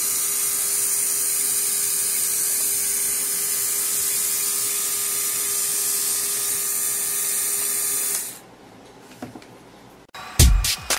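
Small DC motor with a drill bit coupled to its shaft, running steadily with a high whir; it cuts off about eight seconds in. Background music with a beat starts near the end.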